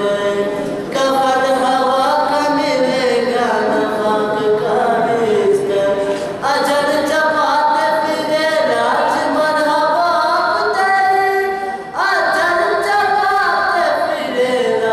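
A boy's voice singing a manqabat (devotional praise poem) unaccompanied into a microphone, in long melodic phrases with short breaths about 1, 6.5 and 12 seconds in.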